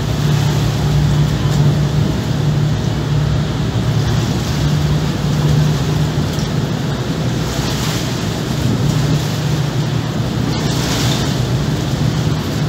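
Car ferry's engines running with a steady low drone under a wash of wind and churning water as the ferry gets under way.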